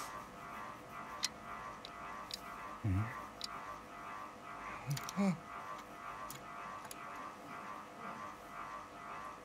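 An old man's two short low grunts, about three and five seconds in, while he wipes his spectacles with a cloth, with a few light clicks. A faint steady hum runs underneath.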